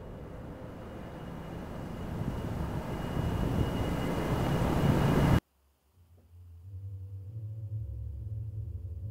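A rushing noise with a deep rumble, growing steadily louder, cuts off abruptly about five seconds in. After a moment of near silence, a low steady hum sets in and slowly builds.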